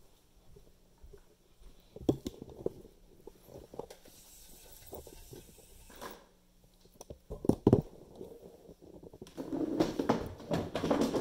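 Handling noise from a handheld phone camera being carried about: scattered knocks and rubbing on the microphone, with two louder bumps past the middle and a stretch of rustling near the end.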